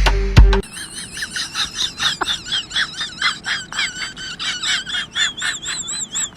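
An animal's rapid high chirping calls, several a second, turning into a wavering, whistle-like call near the end. A clip of music with a heavy bass cuts off abruptly just before the calls begin.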